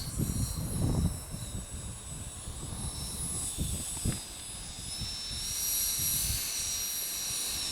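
Freewing Hawk T1's 6S 70 mm electric ducted fan running at taxi throttle: a steady high whine made of several tones, rising a little in pitch about five and a half seconds in. Low buffeting rumble in the first second or so.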